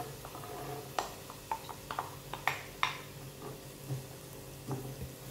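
Scattered light clicks and knocks of a wooden spatula against a nonstick frying pan as chopped onion is tipped in and stirred, most of them in the first three seconds, over a faint steady hum.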